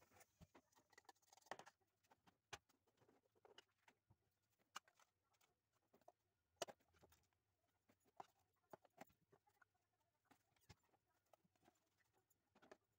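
Faint, irregular clicks and taps of a metal fork against a bowl while mashing boiled potatoes, with one sharper tap about six and a half seconds in.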